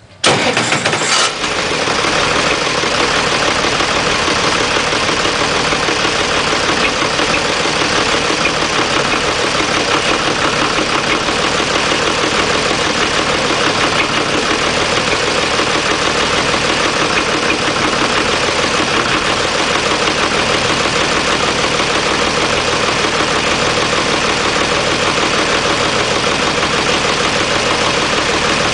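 Oliver farm tractor's engine starting, loudest for the first second or so as it catches, then running at a steady speed.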